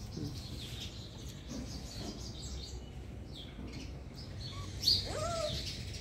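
Birds chirping in short, quick high notes, with one louder call about five seconds in that slides up and then down.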